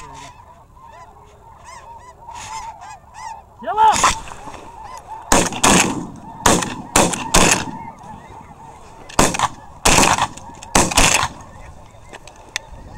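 A volley of about ten shotgun blasts from more than one gun, in quick clusters, over a steady chorus of snow goose calls. The shots come from hunters firing on geese finishing over the decoys.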